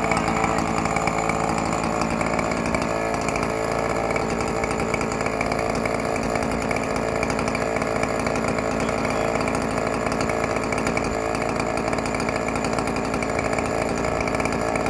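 Yuzhoukee YZ105 105cc two-stroke chainsaw running steadily at high speed, cutting through a log in an Alaskan chainsaw mill.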